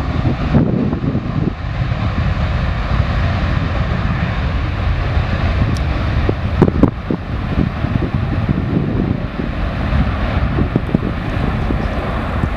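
Aircraft engine noise under heavy wind buffeting on the microphone, with a few brief knocks about halfway through.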